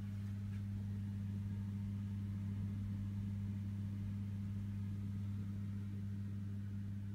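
Steady low hum with an even, unchanging pitch.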